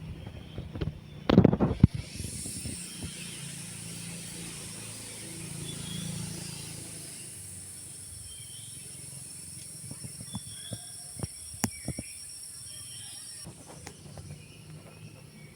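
Morning forest ambience: a steady high-pitched insect drone that starts about two seconds in and cuts off near the end, with scattered short bird chirps. A brief cluster of loud knocks comes about a second in, and a few sharp clicks come later.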